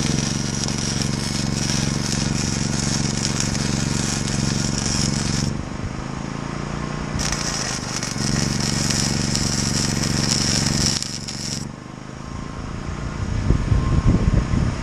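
Electric arc welding on a galvanised steel frame: a steady crackling arc in two runs of about five and four seconds, with a low hum under each. Low rumbling knocks near the end.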